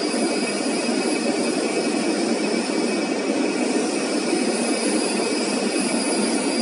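Three-head CNC router at work, its spindle running and bit cutting a fibreboard panel: a steady machine noise with a faint high whine.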